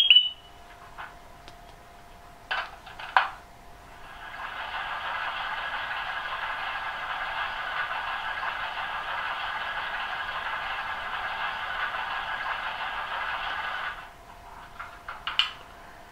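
Refuelling sound effect from the Piko BR 216 H0 model locomotive's sound decoder, played through its small loudspeaker: two clacks, then a steady hiss of fuel flowing that lasts about ten seconds and stops abruptly.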